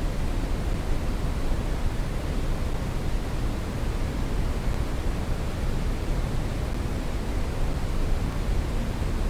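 Brown noise: a steady, even hiss-like rumble, strongest in the bass and falling off towards the highs, with no changes.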